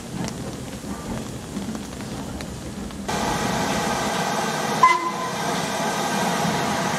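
Steam locomotive sounds: faint at first, then about three seconds in a sudden, louder steady hiss of steam from LMS Black Five 4-6-0 No. 5428 standing with steam escaping. A short, high whistle toot sounds just before five seconds in.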